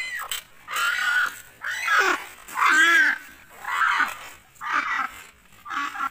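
Muscovy ducks calling during mating: a regular series of about seven harsh, pitched calls, roughly one a second, each about half a second long, loudest about three seconds in.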